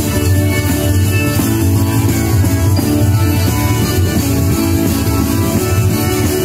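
Live folk music played on acoustic guitars, going on steadily without a break.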